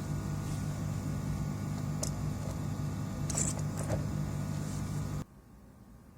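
A steady low machine hum with a few light clicks, cutting off suddenly about five seconds in.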